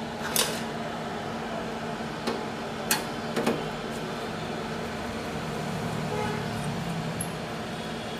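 A steady background hum with a few sharp clicks and knocks in the first few seconds as a screwdriver is handled against the steel cover of a power amplifier, ready to unscrew it.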